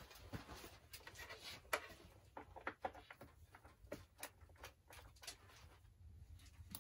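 Quiet handling noises: scattered light clicks, taps and rustles, with one sharper click about two seconds in.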